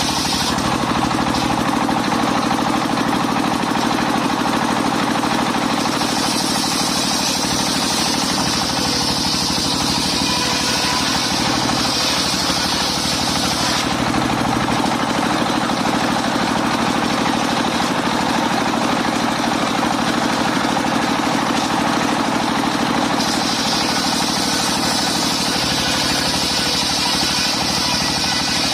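Engine of a mobile circular sawmill running steadily, with a higher hiss that swells for several seconds at a time, once about a quarter of the way in and again near the end.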